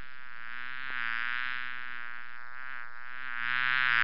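A bee buzzing sound effect: a steady, low, raspy buzz that swells louder about a second in and again near the end.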